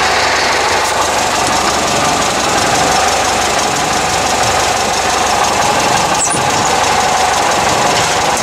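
Pinzgauer 712M's air-cooled four-cylinder petrol engine running at a steady idle.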